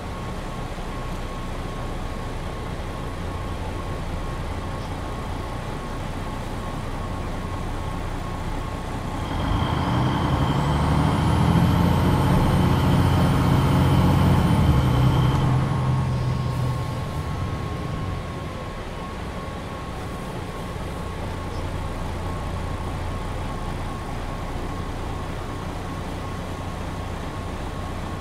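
Diesel engine of a MAN NG 313 articulated bus, heard from aboard: it runs steadily, then about nine seconds in it works harder as the bus accelerates. It is much louder for about seven seconds, with a high whine that rises and then falls, before easing back to a steady run. A faint steady high tone runs underneath throughout.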